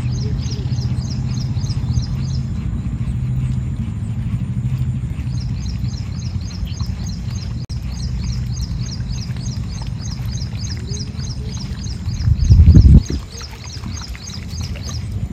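Fishing reel being cranked to retrieve a lure: a rapid, regular chirping about four times a second over a low whir. It stops about two and a half seconds in and starts again a few seconds later. A brief loud low thump comes near the end.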